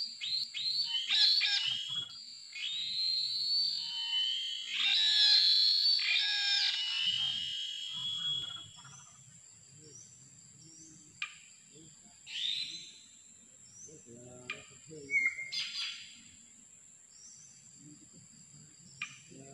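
Jalak bilbong starlings calling: a dense run of loud, harsh chattering calls for the first eight seconds or so, then scattered short calls and a brief whistle, over a steady high-pitched tone.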